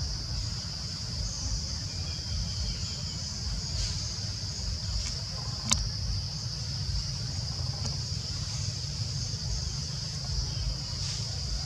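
Steady high-pitched drone of insects over a constant low rumble, with one sharp click a little past halfway.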